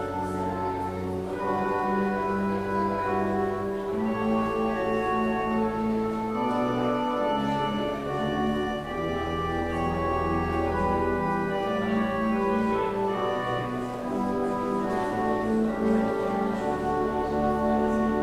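Organ playing slow, sustained chords over a low bass line, the notes changing every second or two.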